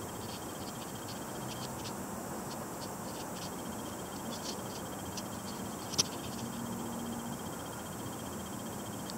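Faint, short, irregular high chirps of frogs calling in the dark, over a steady hiss; a single sharp click about six seconds in.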